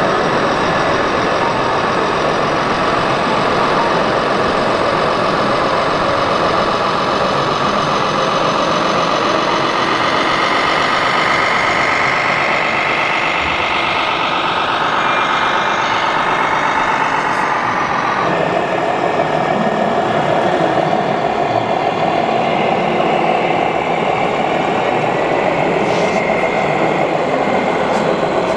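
1/14-scale RC trucks running with engine sound, steady at first and rising in pitch from about ten seconds in, then changing abruptly about eighteen seconds in.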